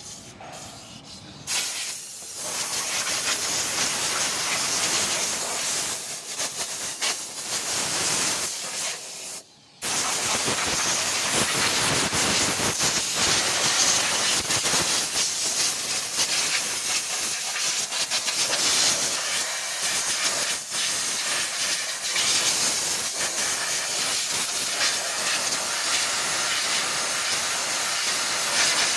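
Hand-held spray gun blowing a pressurised jet over an engine bay, a steady loud hiss that starts about two seconds in and breaks off briefly about nine and a half seconds in.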